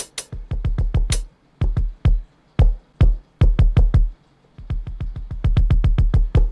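Electronic drum-machine kick drum samples played from MIDI controller pads: single hits at uneven spacing and varying loudness, with a few brighter, sharper hits among them, then a fast roll of about eight hits a second near the end.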